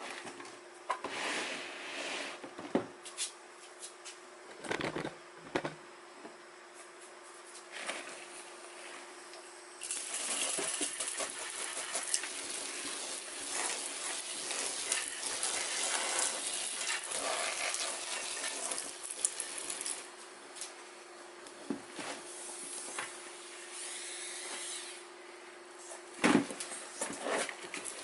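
Water hissing from a sprayer onto bark-chip substrate for about ten seconds from about a third of the way in, with a shorter spraying later. Scattered knocks and rustles of the plastic tub and bark come before and between, over a steady low hum.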